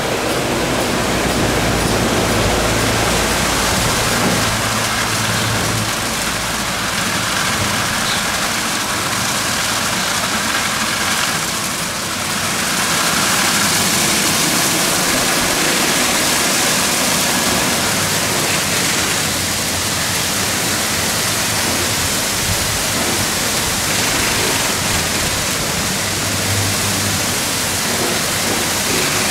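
Ceccato Hydrus Tech rollover car wash at work: its rotating side brushes scrub a van amid spraying water, making a steady rushing, splashing noise. A low motor hum from the gantry comes and goes beneath it.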